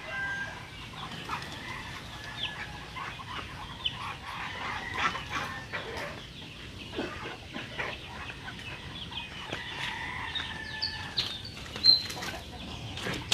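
Backyard poultry calling: a steady scatter of short clucks and chirps, with wings flapping and one loud squawk near the end as a bird is picked up.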